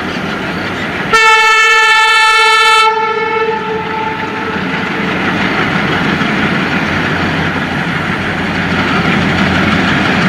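Twin WDM-3A ALCO diesel locomotives, each with a 16-cylinder ALCO 251 engine, running under power as they pull a passenger train away. About a second in comes one horn blast lasting under two seconds, which lingers briefly after it stops.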